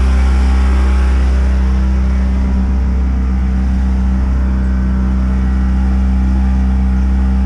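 A boat's engine running loud and steady, a low even drone with a clear pitch.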